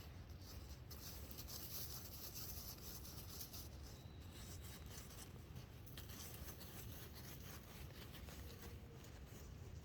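A puppy digging in dirt: faint, irregular scratching and scraping of paws in soil.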